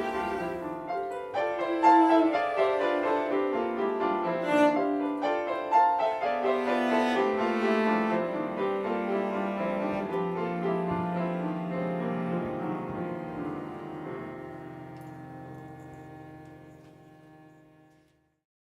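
Piano and cello playing a slow chamber-music passage, with a long low note held near the middle. The music gradually dies away and fades out just before the end.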